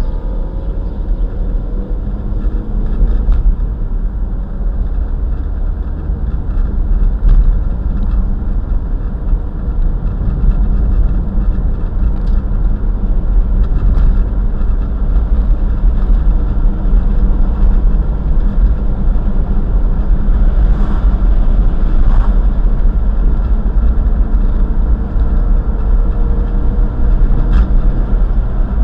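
Car engine and tyre noise heard from inside the moving car's cabin: a steady low rumble, with a few brief sharp knocks along the way.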